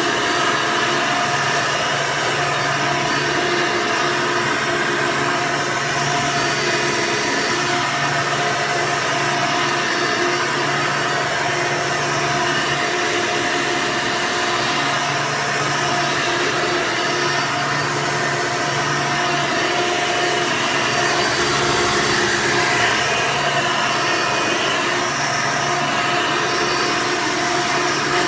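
Hoover Sprint upright vacuum cleaner running steadily in upright mode, its motor giving an even whine.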